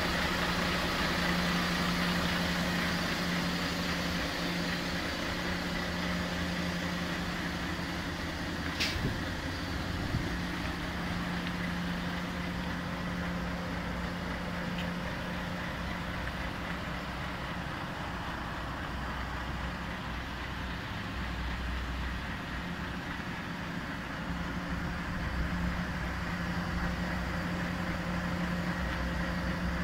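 Volvo FMX 460's 13-litre six-cylinder diesel idling steadily with a low hum. A single sharp click about nine seconds in.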